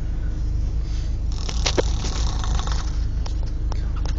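A person snoring, with a hissing breath drawn in about a second and a half in, over a steady low rumble and a few sharp clicks.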